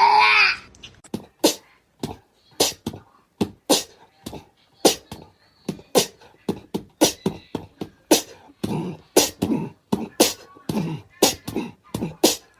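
A run of sharp, dry taps or knocks, irregular at roughly two a second, with a short falling squeal at the very start.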